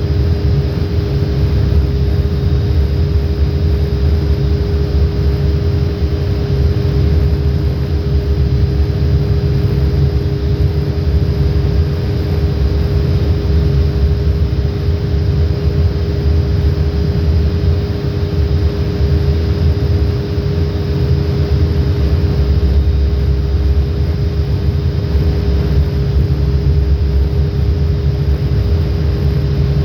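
Shipboard machinery running steadily: a loud low rumble with a constant hum that never changes.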